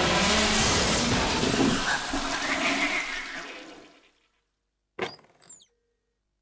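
Cartoon sound effect: a loud rushing, crashing noise as a heap of household appliances whirls about, fading out over about four seconds. A short burst of quick squeaky sounds comes about five seconds in.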